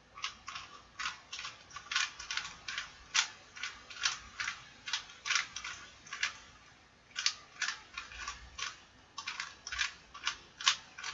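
Plastic puzzle cube being turned by hand: a quick, irregular run of clicks as its layers snap round, about two to three a second, with a brief pause a little past halfway.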